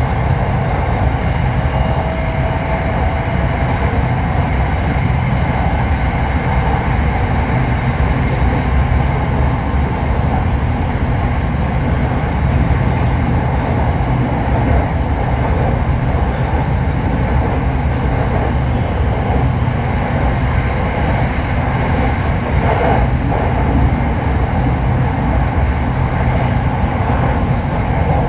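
Steady rumble of an SRT Red Line electric commuter train running at speed on an elevated track, heard inside the passenger car, with a faint rising whine about two seconds in.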